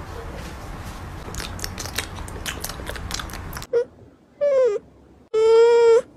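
Pomeranian puppy giving high-pitched whining cries: a short one, one that falls in pitch, then a long steady one. They follow a few seconds of rustling noise with scattered clicks.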